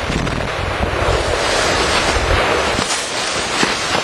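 Aftermath of an ANFO blast in a levee: a loud, continuous rushing noise with many small sharp impacts as mud and debris come down, over a deep rumble that fades out about three seconds in.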